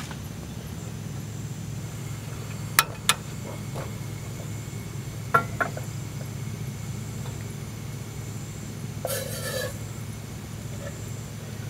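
Metal camp cookware knocking: two sharp clinks about three seconds in and two more about five and a half seconds in as the steel kettle and stove windscreen are handled. Then a brief splash of water poured from a plastic bottle into the steel kettle, over a steady low hum.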